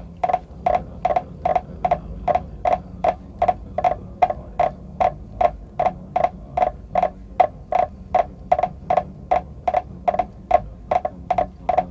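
Wooden fish (muyu) struck in a steady beat, about two and a half hollow, pitched knocks a second, over a faint low hum, as monks keep time at sutra chanting.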